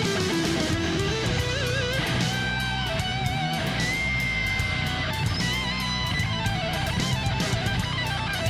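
Background music: an electric guitar plays a lead melody over a steady beat, with wavering, vibrato-laden notes and one long held note about halfway through.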